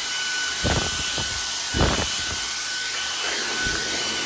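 Shark WandVac (WV205) cordless handheld vacuum running: a steady high motor whine over rushing air, with two brief thumps in the first two seconds.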